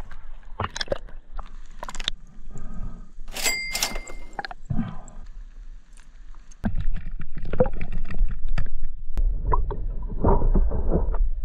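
Water sloshing and gurgling around a spearfisherman's camera as it moves at and below the surface, with scattered knocks. About seven seconds in it turns into a louder low underwater rumble as the camera goes under.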